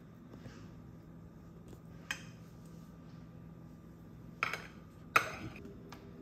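A kitchen knife clinking against a ceramic dinner plate as an avocado is sliced on it: three sharp clinks, each with a short ring, about 2 s, 4.5 s and 5 s in, the last the loudest.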